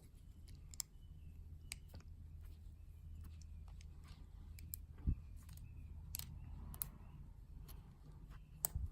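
Faint, irregular small metallic clicks of a lock pick and tension wrench working the pins in the keyway of a Yale Y220/71 padlock, with a single dull knock about five seconds in.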